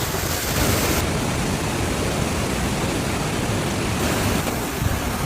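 Steady rushing noise of water, as from fast-flowing floodwater or heavy rain, with the hiss changing abruptly about a second in and again near four seconds.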